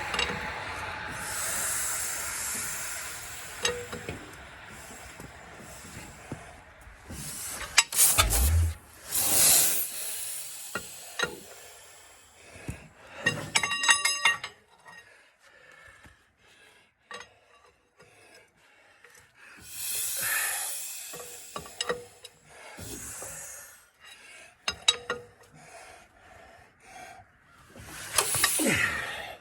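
Hand-cranking the Caterpillar Sixty's engine with the starting bar: irregular metal clinks and rubbing, hissing and rasping sounds, and a low thump about eight seconds in.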